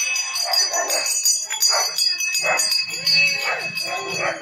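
Small bells jingling rapidly and continuously, with a steady high ringing underneath. Voices call out in short bursts over the bells.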